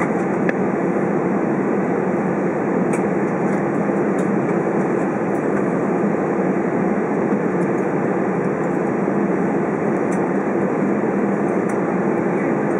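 Steady cabin noise inside an Airbus A320 taxiing after landing, its engines at idle: an even rush with a low steady hum underneath.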